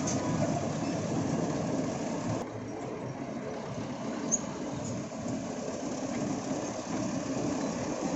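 Heavy excavator's diesel engine running steadily with a continuous low rumble. About two and a half seconds in, the sound abruptly loses its higher hiss and gets a little quieter, then builds again.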